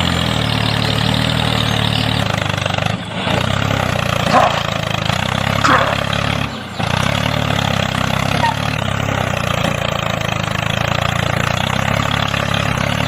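Tractor diesel engine sound running steadily at idle, dropping out briefly about three seconds in and again near seven seconds. A few short high chirps sound over it.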